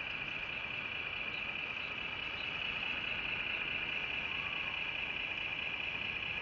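Radio-controlled scale model Caterpillar 963B track loader running as it raises and tips its bucket: a steady high-pitched whine over a low engine-like hum.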